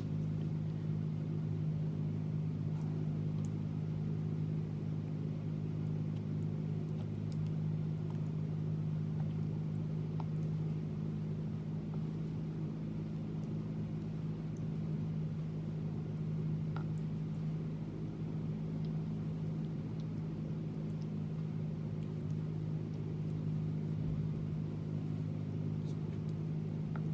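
A steady low machine hum made of several even tones. Over it come a few faint, scattered clicks of a utensil against a small container as a thick spread is stirred.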